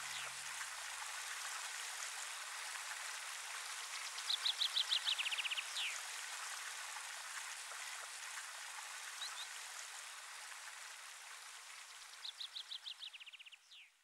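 Steady rush of a flowing stream with a chaffinch singing twice, about four and twelve seconds in: a quick run of notes that falls in pitch and ends in a short flourish. A brief chirp comes between the songs, and the water fades away near the end.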